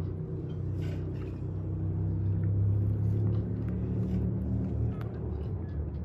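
A steady low machine drone with an engine-like hum, swelling slightly in the middle and easing off near the end.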